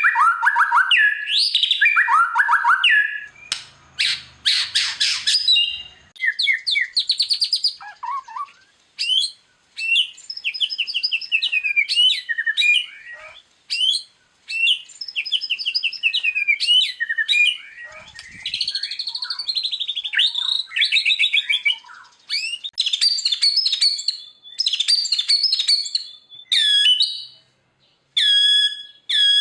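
White-rumped shama (murai batu) singing a varied song of clear whistles, fast trills and rapid repeated notes, phrase after phrase with short pauses between.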